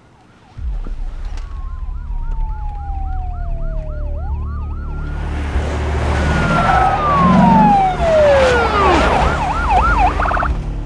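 Several police car sirens sounding together as the cars pull up: a fast yelping siren over a slower wailing one, over a low rumble. About five seconds in a loud rush of vehicle noise joins, and one siren's pitch falls away steeply over a few seconds; the fast yelp returns near the end.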